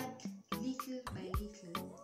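Background music with a steady beat of about two strokes a second and a sliding tone a little past a second in.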